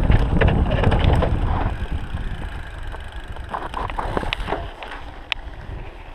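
Mountain bike riding down a dirt trail: wind buffeting the microphone and tyres crunching over dirt and stones, the wind rumble fading after about two seconds, with scattered sharp clicks and rattles from the bike over the rough ground.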